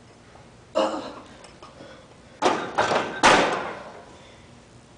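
Loaded barbell being re-racked in a steel power rack after a squat set: a single knock about a second in, then a quick run of three metal clanks and rattles from the bar and plates about two and a half seconds in.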